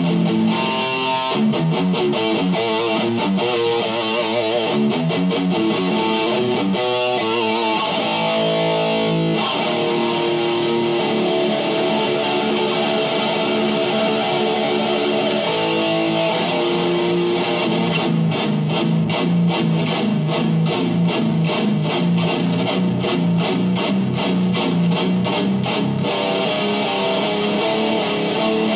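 Distorted electric guitar playing extreme-metal riffs, with the notes changing every few seconds. In the second half it settles into fast, evenly picked strokes.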